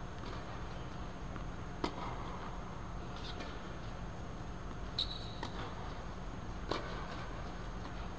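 Tennis ball struck by rackets in a rally on an indoor hard court: three sharp hits a few seconds apart, the middle one followed by a short high squeak, over a steady low hum.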